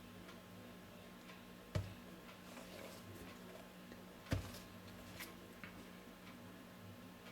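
Faint handling noise from a phone box and its packaging: scattered small clicks and two sharper knocks, one a little under two seconds in and a louder one past four seconds, over a steady low electrical hum.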